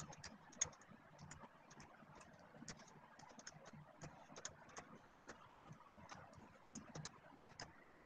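Faint, irregular light clicks and taps, a few a second, over near silence.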